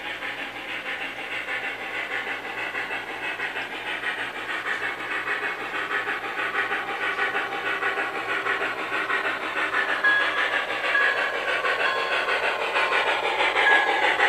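Electronic steam chuffing from an MTH model Pere Marquette 2-8-4 Berkshire steam locomotive's sound system: a rhythmic hissing chuff, about two to three beats a second, growing gradually louder as the engine approaches.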